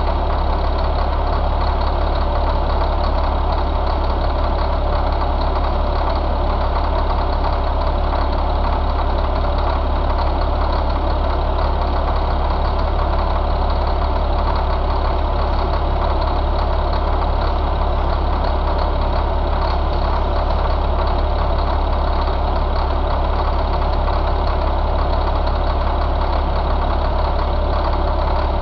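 2003 Caterpillar 3126 inline-six diesel engine idling steadily, heard close up from the open engine bay.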